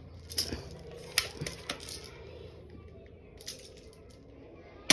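Light clicks and clatter from handling a toy pistol: several short ticks in the first two seconds, a fainter one near the middle, and a sharp snap right at the end.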